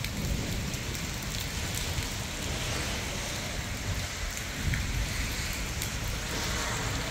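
Steady rain falling on wet pavement and parked cars, an even hiss with a low rumble underneath.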